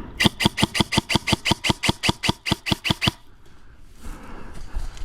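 Airsoft gun firing a rapid string of about nineteen sharp shots, roughly six a second, for about three seconds, then stopping.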